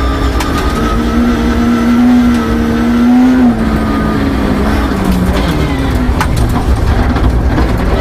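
Peugeot 306 rally car's engine running hard under load, heard from inside the cabin over loud gravel road noise. Revs climb until about three and a half seconds in, then fall as the driver lifts off. Sharp ticks of gravel hitting the car near the end.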